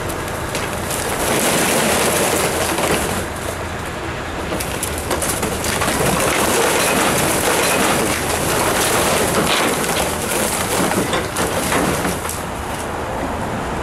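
Plastic bottles and packaging pouring out of the opened bottom of a bell-type recycling bin and clattering onto a heap of plastic in a steel skip: a dense rattle of many small knocks that swells about a second in and thins out near the end.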